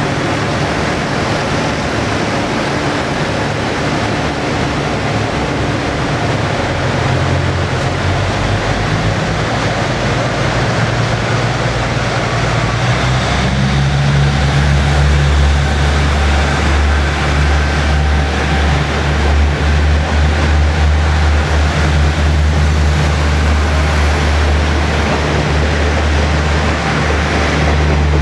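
Diesel engines of a KiHa 47/48 railcar set running with a steady low drone as the cars roll slowly past. The drone grows louder about halfway through as an engine car comes closer.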